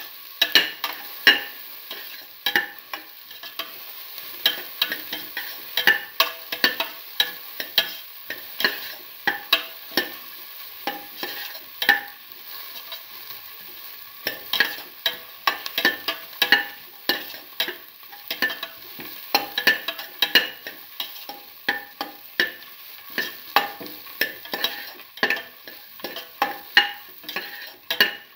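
Beef and vegetable stew bubbling in a cooking pot, with irregular sharp pops and clicks, a few a second, and a metal spoon stirring it at first.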